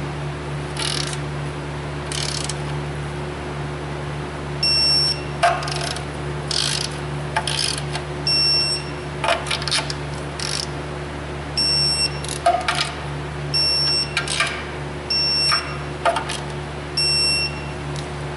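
Digital torque wrench ratcheting in short strokes on the automatic transmission strainer bolts. It gives a short high electronic beep about six times as the bolts reach the set torque of 89 inch-pounds. A steady low hum runs underneath.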